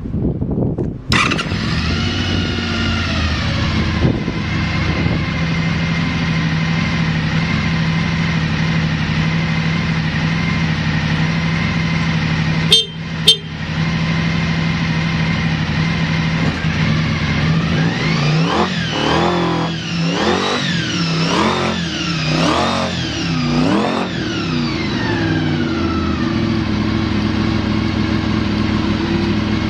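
Honda VFR400 V4 motorcycle engine started on the electric starter, catching about a second in, then idling steadily with no abnormal noise. Two short sharp sounds come near the middle, and later the throttle is blipped about five times, each rev rising and falling, before the engine settles back to a stable idle.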